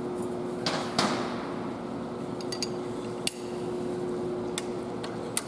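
Scattered sharp metal clicks and clinks of hand tools and engine parts being handled during rocker assembly work, over a steady background hum.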